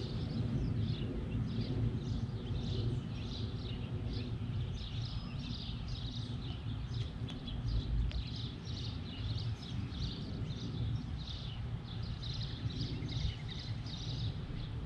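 Birds chirping in quick, repeated short calls over a steady low outdoor rumble.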